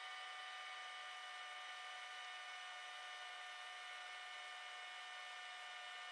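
A steady, unchanging hum: one held tone with evenly spaced overtones, with no rhythm or breaks.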